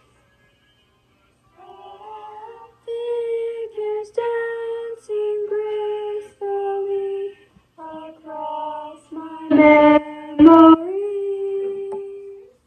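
A girl singing alone without accompaniment, holding long notes of a slow melody after a second or so of quiet. About ten seconds in come two short, much louder sounds, loud sung notes or sharp noises close to the microphone.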